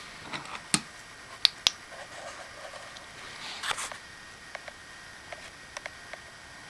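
Sharp clicks and a short scrape of small motorcycle starter clutch parts being handled: three loud clicks in the first two seconds, a brief scrape near the middle, then lighter ticks.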